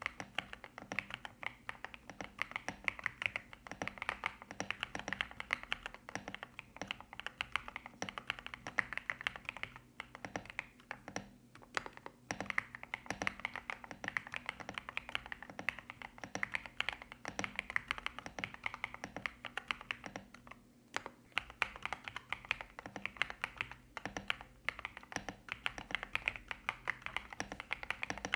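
Typing on a Kzzi K75 Lite mechanical keyboard with stock Rainbow linear switches and MOA-profile keycaps: fast, steady keystroke clacks with a few short pauses.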